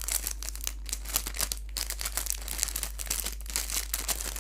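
Thin clear plastic packaging bag crinkling in quick, irregular crackles as it is handled.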